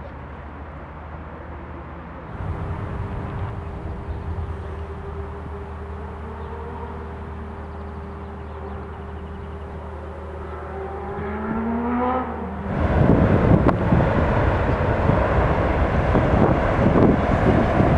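Electric trains passing. A Talent 2 electric multiple unit hums steadily, then its traction motors give a rising whine. About thirteen seconds in, a louder double-deck regional express takes over, with wheels rumbling and clattering as it crosses a railway bridge.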